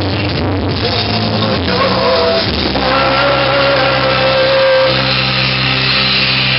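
Karaoke: a man singing into a microphone over a loud backing track with a steady bass line, holding one long note from just under three seconds in to about five seconds in.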